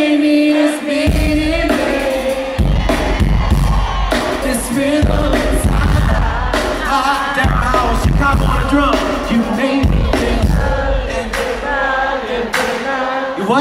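Live R&B band music with singing. A held vocal note opens, then heavy bass and drums come in about a second in while the singing goes on over the band.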